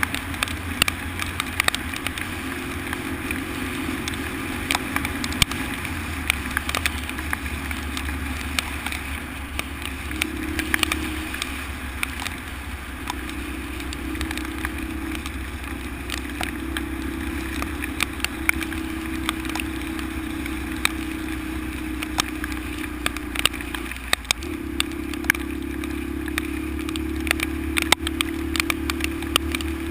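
Honda XL125's single-cylinder four-stroke engine running steadily under way on a rough road, with the engine note dropping briefly about three quarters of the way in, and frequent sharp clicks and knocks over the top.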